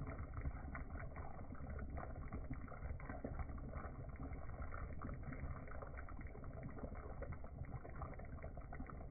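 Coconut milk stew with mahi mahi simmering in a pot: small bubbles popping irregularly over a low steady rumble.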